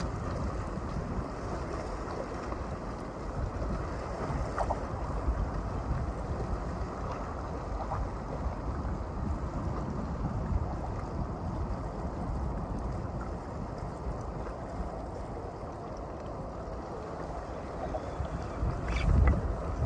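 Wind buffeting the microphone over sea water lapping against a concrete seawall. There are a few brief clicks near the end.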